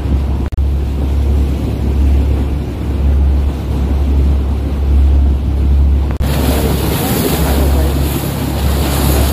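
The trawler under way: a steady low drone of its engine with wind buffeting the microphone. About six seconds in the sound changes abruptly to a brighter rush of wind and water hiss.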